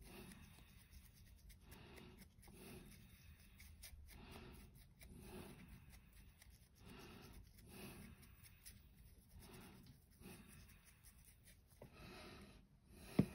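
Faint scratchy strokes of a flat bristle brush dry-brushing paint onto the rim of a hard 3D-printed plastic token, repeating about once a second. A sharp tap near the end.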